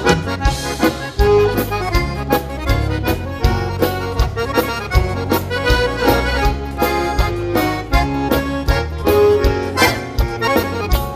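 Instrumental break of southern-Brazilian bandinha dance music: an accordion plays the melody over a steady bass and drum beat.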